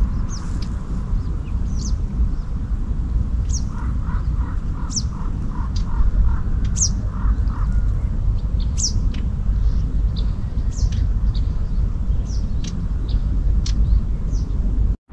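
Wild birds chirping, short high calls scattered throughout, over a steady low rumble. From about four to eight seconds in, a run of about ten evenly spaced lower call notes, some two or three a second. The sound cuts out briefly just before the end.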